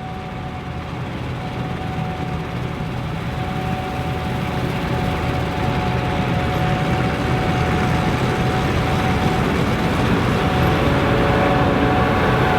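Gleaner combine harvester running while harvesting wheat: a steady low machinery hum with a steady whine over it, growing gradually louder.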